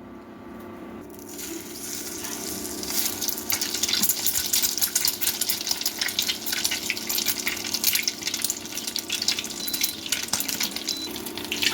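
Batter-dipped bread snacks deep-frying in hot oil, sizzling and crackling; the sizzle starts about a second in and grows louder, then keeps on steadily.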